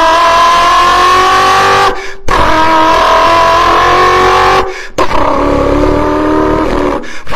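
Beatboxer's vocal imitation of a car engine accelerating through the gears: three sustained buzzing pulls, each rising slightly in pitch, with short breaks between them like gear changes.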